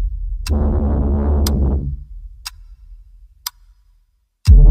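Background music: a clock-like tick about once a second over low sustained synth tones, which fade away after about 2 s; the music comes back loud with a deep hit near the end.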